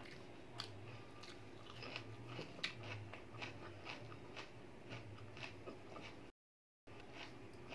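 Close-miked mouth sounds of a person eating dal and rice by hand: soft wet chewing and lip clicks, a few a second, over a steady low hum. The sound drops out completely for about half a second near the end.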